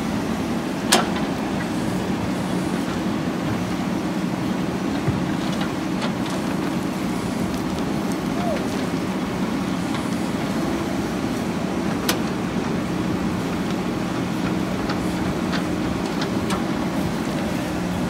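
Diesel engine of a JCB 3DX backhoe loader running steadily under load as the backhoe arm digs soil, with a few sharp knocks, the loudest about a second in and another around twelve seconds in.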